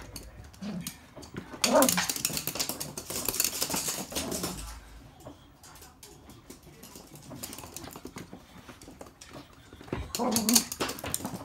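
Toy poodles playing with stuffed toys: two bouts of short dog vocalisations, one about two seconds in and one near the end, over light clicking of claws on a hard floor.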